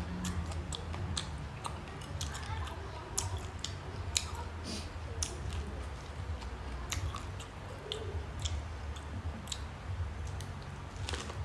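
Close-miked chewing and biting of steamed corn on the cob, with frequent irregular sharp clicks and wet smacking over a low steady hum.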